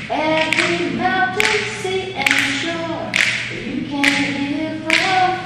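A woman singing unaccompanied, holding long notes that slide between pitches, with a clap-like beat about once a second.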